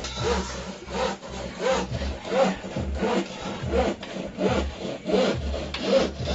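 Metal spoon scraping around a steel wok as a thick cream sauce is stirred: a regular rasping stroke about one and a half times a second.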